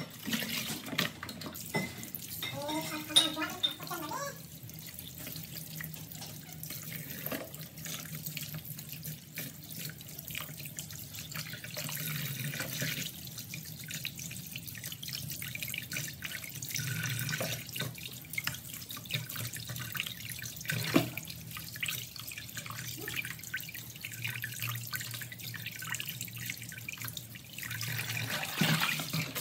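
Water splashing and sloshing as vegetables are swished and rinsed by hand in a plastic basin of water in a stainless steel sink. A tap runs into the basin, louder near the end.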